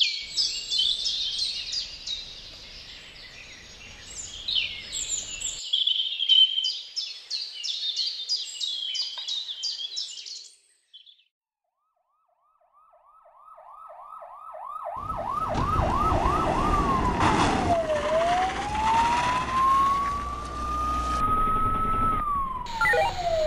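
Birds chirping for about the first ten seconds, then a brief silence. A police siren comes in with a fast yelp, about four sweeps a second, then changes to a slow wail that falls, climbs and falls again, over a steady low noise.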